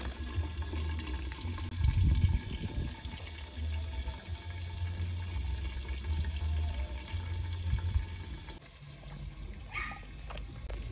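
Wind buffeting the phone's microphone: an uneven low rumble that swells about two seconds in and eases near the end.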